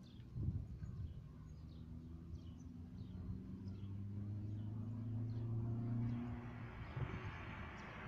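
Small birds chirping, short high chirps about twice a second for the first few seconds, over a low vehicle engine hum that swells midway and then gives way to a steady traffic hiss.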